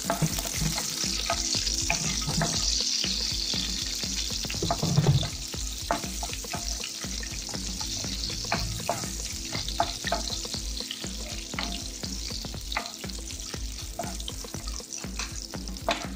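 Cashew nuts sizzling as they fry in a pan of hot ghee and sunflower oil, with a wooden spatula stirring them and clicking against the pan, and a louder knock about five seconds in.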